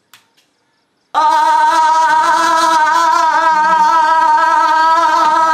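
A loud, long wailing tone with a wavering pitch, starting abruptly about a second in and cut off sharply near the end: a sound effect for the electric shock as the man touches the live wiring.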